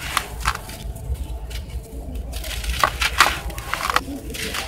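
Dry, crumbly dirt being scooped, squeezed and crumbled by hand in a plastic bucket: irregular gritty crunching and trickling, with a few sharper crackles, loudest about three seconds in.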